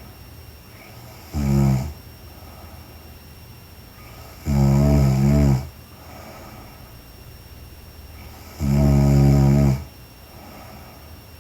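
A young woman snoring in her sleep: three low, rasping snores on the in-breath, one every three to four seconds, each lasting up to about a second, with quieter stretches between.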